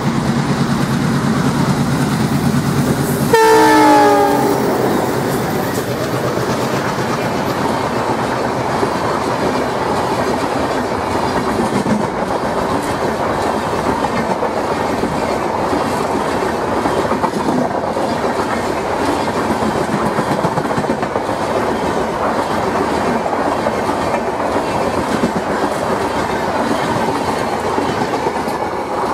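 Twin ALCo diesel locomotives passing close with engines running, then a horn blast about three and a half seconds in, its pitch falling as they pass. Passenger coaches follow, rolling by with a steady rumble and wheel clatter that fades a little near the end.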